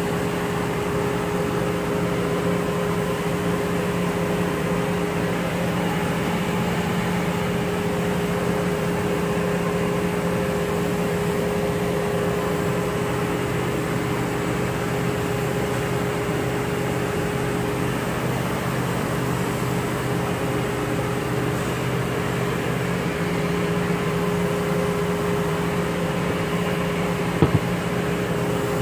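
Steady mechanical hum with a held tone, like a fan or motor running in the background, and one short knock near the end.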